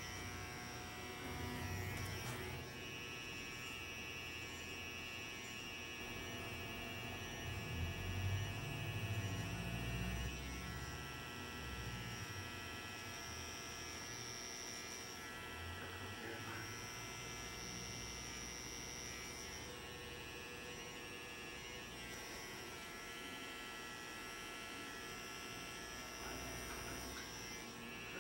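Electric hair trimmer buzzing steadily as it cuts a tapeline at the hairline. There is a louder low rumble about a third of the way in.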